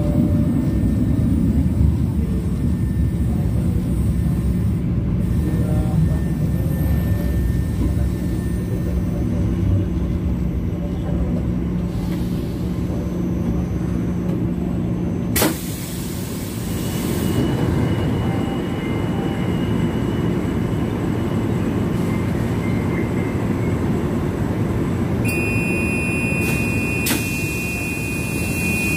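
Manila LRT Line 1 light-rail car running and coming to a stand: a steady rumble of wheels and motors with a low hum. The hum ends with a sharp knock about halfway, and a high steady electronic tone sounds for a few seconds near the end.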